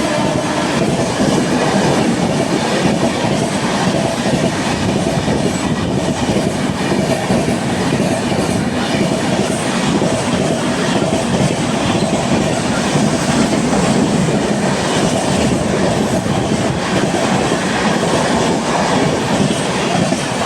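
Express passenger train running past at speed, its coaches' wheels clattering over the rail joints in a steady, loud rumble.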